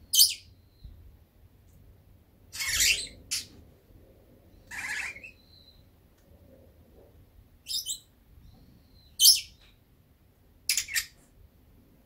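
Pet lovebird giving short, shrill, high-pitched chirps and squawks, about seven of them at irregular intervals of one to two seconds.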